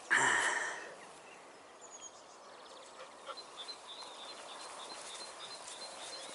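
Birds calling: a short loud call right at the start, then softer birdsong with a quick run of high chirps from about three seconds in.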